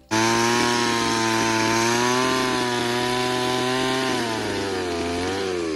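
Chainsaw engine running at a steady high speed, its pitch sagging slightly about four seconds in and falling away near the end.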